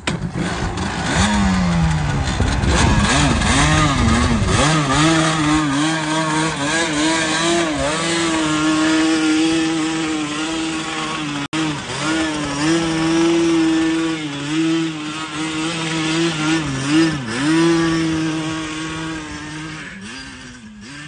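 Yamaha two-stroke quad bike engine comes to life right at the start and revs, then runs as the quad is ridden off, its pitch rising and dipping with the throttle. The sound grows fainter near the end.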